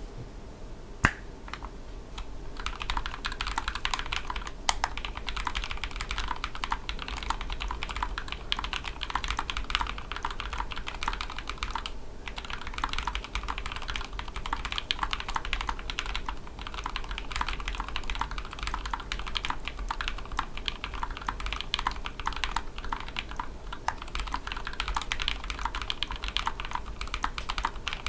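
Custom mechanical keyboard being typed on fast: a KBDFans Tofu 60% tray-mount case with carbon-fibre plate and lubed 'Holy Greetaliaz' tactile switches (Aliaz housing, Halo Clear stem, Greetech Blue leaf, 68 g spring). One sharp keystroke about a second in, a few scattered presses, then steady rapid typing with a brief pause near the middle.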